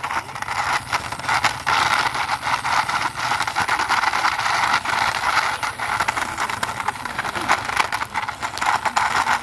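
Plastic wheels of a toy police motorbike rolling over rough concrete as it is pushed by hand, a steady rattling scrape full of fine clicks.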